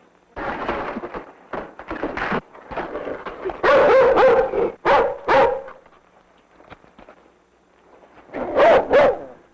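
A dog barking in three bouts of repeated barks, the loudest in the middle.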